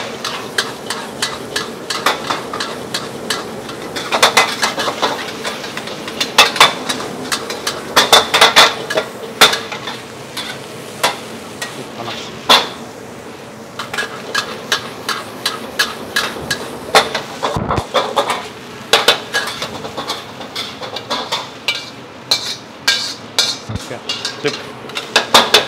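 Fried rice (nasi goreng) being tossed and stirred in woks over high flame, drying the rice and giving it a smoky edge. Metal spatulas scrape and clang against the woks in quick, irregular strikes over a steady sizzle.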